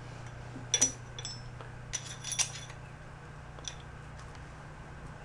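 A few sharp metallic clinks and taps of hand tools against steel parts, a close pair about a second in and several more over the next two seconds, with a steady low hum underneath.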